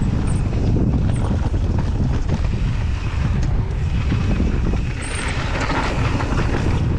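Wind buffeting the camera microphone over knobby mountain-bike tyres rolling fast on dry dirt and loose gravel, with steady small rattles and ticks. About five seconds in, a louder hissing scrub as the tyres carve through a bermed turn.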